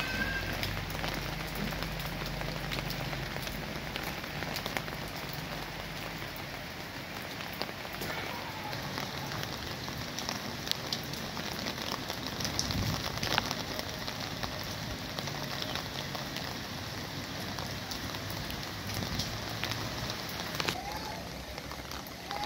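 Steady rain falling on leaves and the ground, with many small drop ticks.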